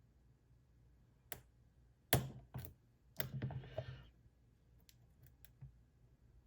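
Lock pick and tension wrench working the pins inside an ASSA 700 high-security lock, giving scattered sharp clicks. The loudest click comes about two seconds in, a short run of ticks follows around three to four seconds, and a few faint ticks come near the end.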